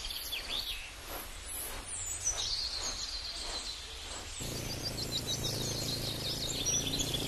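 Birds chirping and trilling in repeated short high calls over outdoor ambience. About four and a half seconds in, a steady low hum sets in underneath.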